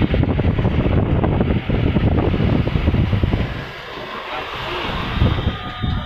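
Wind buffeting the microphone of a moving vehicle, over engine and road noise as it drives along. The rumble eases briefly a little past halfway and then picks up again.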